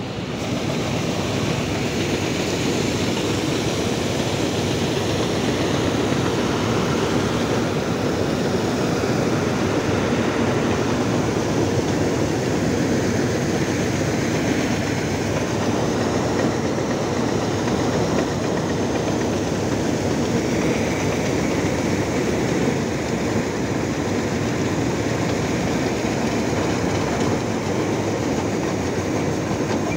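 Combine harvester running steadily at work, its engine and unloading auger giving an even mechanical clatter while wheat grain pours from the spout into a trailer.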